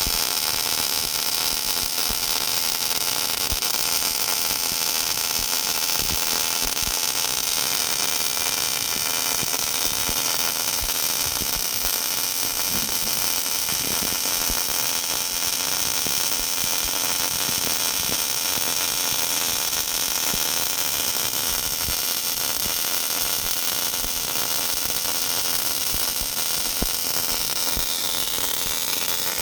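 MIG robot welder running: a steady high hiss with a few steady whining tones in it, unchanging throughout.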